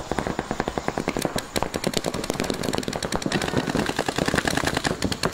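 Paintball markers firing rapid strings of shots, many pops a second without a break.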